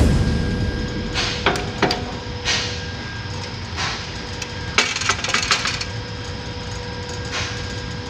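Metal lathe's headstock speed-change lever being shifted, clunking into position with a loud knock, then a series of scattered metallic knocks and clicks. A steady hum runs underneath.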